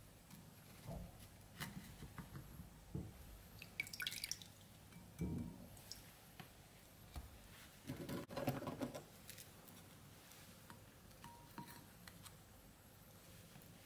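Ladyfinger biscuits dipped in a bowl of coffee, with faint drips and scattered soft taps and handling sounds as they are laid in a plastic dish.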